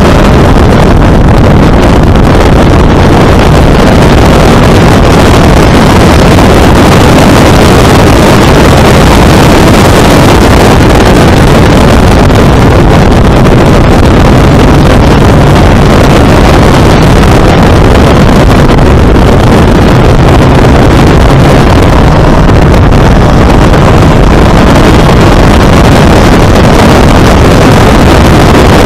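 Supercharged MEV Exocet's Mazda MX-5 four-cylinder engine running hard at track speed, heard from the open cockpit and mixed with heavy wind buffeting on the microphone. The sound is loud and steady.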